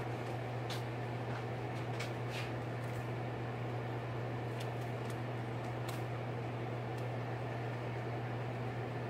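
A pot of broth at a rolling boil, under a steady low hum and hiss, with a few faint soft ticks and splashes as homemade egg noodles are dropped in by hand.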